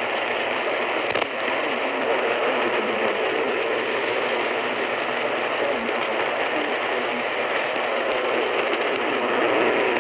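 Steady hiss of static from weak AM radio reception, with a short click about a second in.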